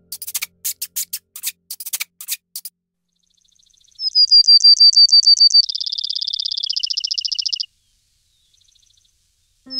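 A run of quick, sharp clicks for the first couple of seconds, then a sparrow sings: about ten sharp high notes in quick succession, then a lower, rapid trill that drops a little in pitch and stops abruptly.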